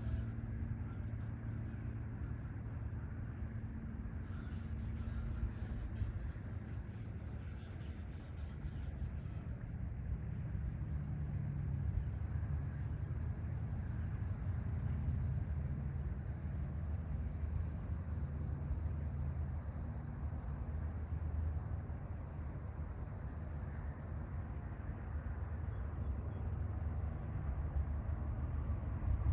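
Insects, crickets or similar, trilling steadily in one high, fast-pulsing band, over a low steady rumble.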